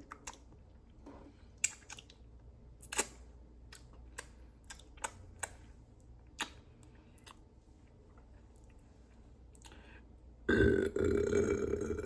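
A few soft mouth clicks and smacks, then about ten seconds in a loud, drawn-out burp lasting about a second and a half.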